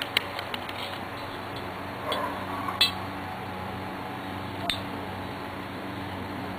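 Steel tape measure being drawn out and handled against an empty steel propane tank: a few sharp metallic clicks and taps with a brief rustle, over a steady low hum.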